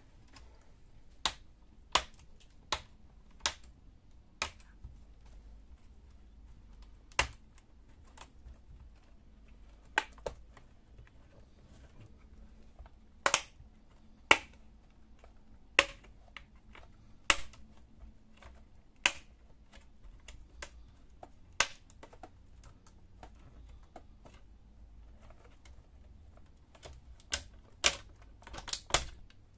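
Plastic snap clips of a laptop's front screen bezel popping loose as it is pried off the display lid: sharp clicks at irregular intervals, some in quick pairs or small clusters, thickest near the end.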